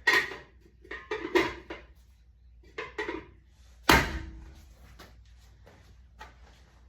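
A metal hubcap being knocked into place on a trailer wheel: a few separate clunks, then one hard knock about four seconds in that rings briefly, followed by small taps.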